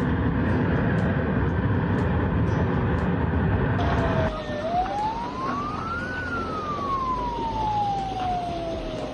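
A loud, dense rushing noise for about four seconds, then an emergency vehicle siren wailing in one slow rise and fall of pitch.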